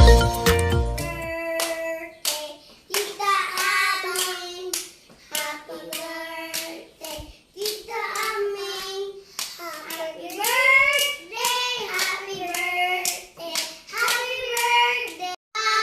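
Children singing in a small room while clapping their hands along. Background music cuts off about a second in.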